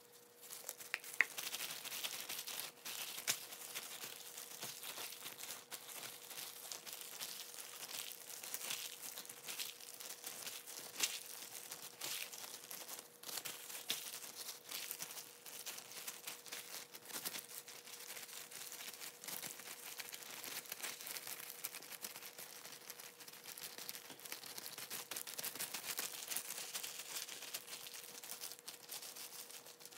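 Thin disposable plastic gloves crinkling and rustling as gloved hands rub seasoning into raw chicken pieces on a cutting board: a continuous run of soft crackles with scattered sharper clicks.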